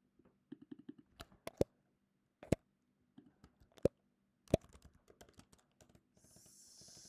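Computer keyboard and mouse clicks: scattered, uneven keystrokes with a few sharper, louder clicks among them. A soft hiss comes in near the end.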